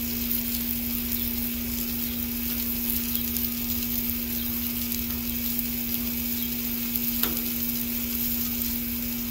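Raw sausage patties sizzling on a hot steel Blackstone flat-top griddle as more are laid down by hand, a steady crackling hiss. A steady low hum runs underneath.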